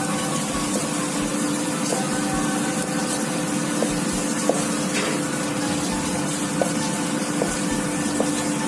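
Kitchen knife cutting fried pork knuckle on a plastic cutting board, with a few light knocks of the blade on the board. Under it runs a steady loud hiss with a low hum.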